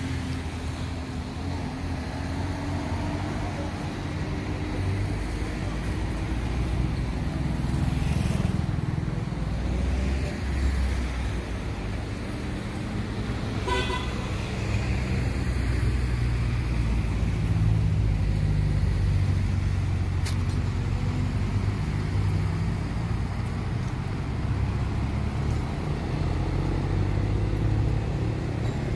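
Road traffic on a city street: cars and other motor vehicles passing with a steady low rumble, and a short car-horn toot about halfway through.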